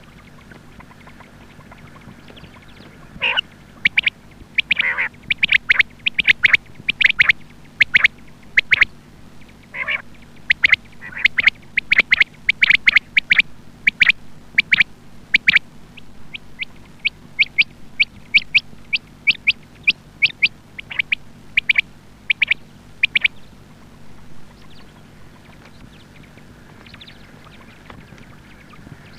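Female quail calling: a rapid run of short, sharp, repeated notes, several a second, that begins about three seconds in and fades to a few scattered calls after about twenty seconds. A faint steady hum lies underneath.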